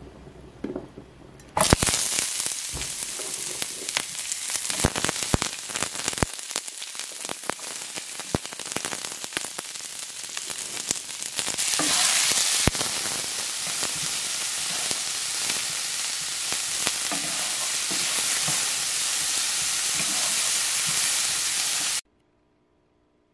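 Diced onion and green pepper frying in hot oil in a nonstick skillet, a steady sizzle with many small crackles, stirred with a wooden spoon. The sizzle starts abruptly a couple of seconds in, gets louder about halfway through, and cuts off suddenly near the end.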